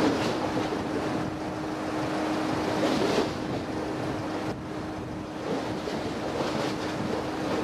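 Wind buffeting the microphone over harbour water sloshing, with a steady low hum from a ship's engines underneath.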